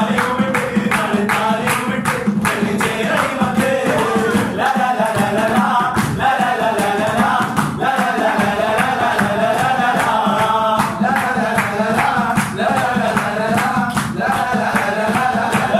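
A group of men singing a Mappila muttippattu song together, keeping time with steady rhythmic hand-clapping.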